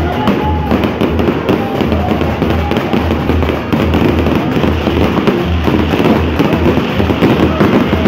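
Fireworks display: a dense, continuous crackling of many small bursts from glittering crackle stars. Music with a steady low beat plays underneath.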